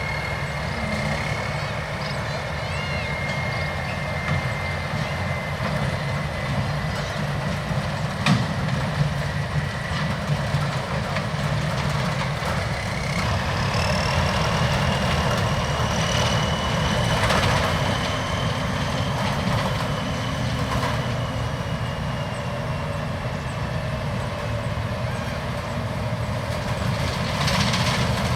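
Rice combine harvester's diesel engine running steadily under load, with a high whine from its drive and threshing machinery that steps up in pitch about halfway through.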